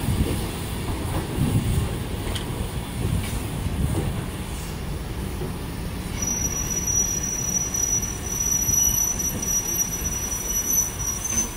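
Steam-hauled railway coaches rolling past along a station platform, with a low rumble of wheels on the track. About halfway through, a steady high-pitched wheel squeal joins in and stops shortly before the end.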